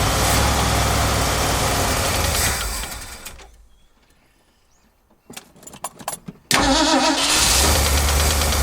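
Ford 400 V8 engine of a 1980 F-350 running, then dying away about three seconds in. After a short near-silence with a few clicks, it comes back running loudly about six and a half seconds in.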